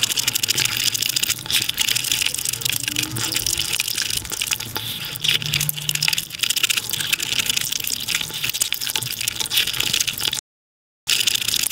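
Close-miked, sped-up eating sounds of chicken biryani eaten by hand: a dense, steady stream of wet crackling and clicking from fingers mixing the rice and from chewing. The sound drops out to dead silence for about half a second near the end.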